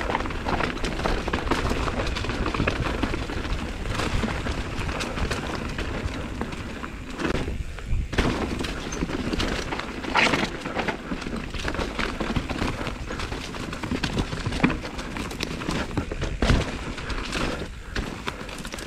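Mountain bike riding fast down a rough dirt trail: a constant rush of wind and tyre rumble, with the bike knocking and clattering over roots and rocks. The hardest knocks come about ten and sixteen seconds in.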